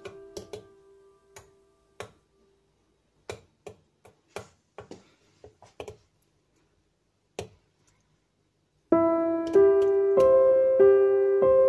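Metal spoon clinking irregularly against a glass mixing bowl while pancake batter is stirred. Piano music fades out at the start and comes back in loudly about nine seconds in.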